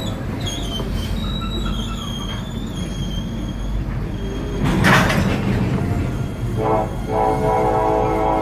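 Freight train of gondola cars rolling past: a steady low rumble with a wavering high-pitched squeal from the wheels. About five seconds in there is a short loud clank, and near the end a sustained pitched tone comes in.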